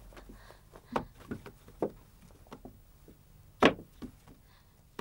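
Scattered short wooden knocks and thumps, a few faint ones early and one louder thump about three and a half seconds in.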